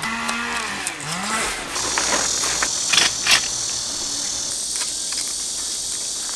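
Cicadas shrilling in a steady, high-pitched chorus that starts about two seconds in, with a couple of sharp rasping clicks partway through as hook-and-loop straps fasten the canvas side panel to the canopy pole.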